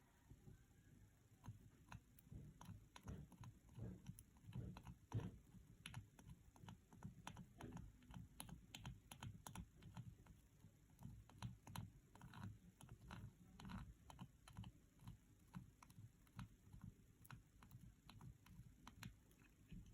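Faint, irregular small clicks and taps, several a second, of hand tools touching a phone's circuit board during soldering.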